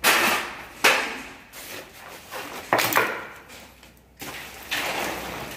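Irregular knocks and clatter: about five sharp hits, each fading off quickly, spread across a few seconds.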